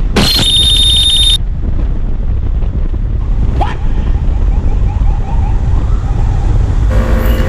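A brief high-pitched edited-in sound effect for about the first second, then the wind and engine noise of a Honda PCX150 scooter riding at speed, with a faint wavering tone in the middle and a steady horn-like blast near the end from a VIP convoy passing the rider.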